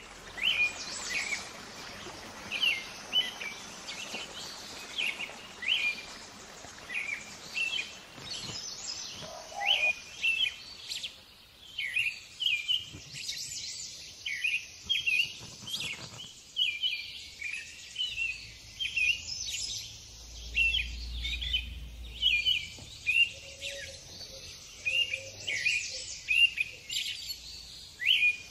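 Small birds chirping over and over, short high chirps coming a few times a second throughout, over a faint steady hiss.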